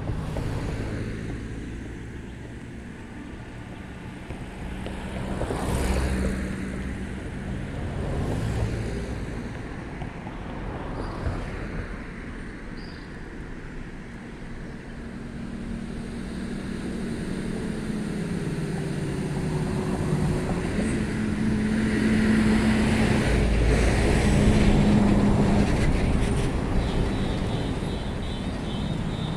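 Road traffic: vehicles driving past close by, engine and tyre noise swelling and fading with each pass. The loudest and longest pass, with a steady engine hum, comes about three-quarters of the way through.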